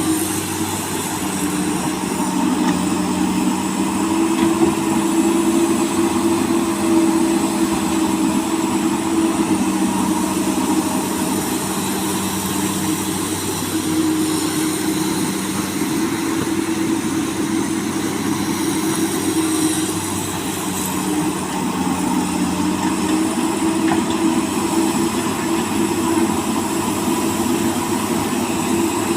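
Komatsu PC200 hydraulic excavator's diesel engine running steadily under working load, its note swelling and easing a little as it digs.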